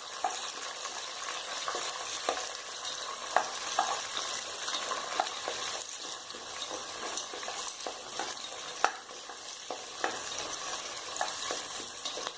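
Sliced onions sizzling as they fry in hot oil in a pan while being stirred, with irregular scrapes and taps of the stirring spoon against the pan.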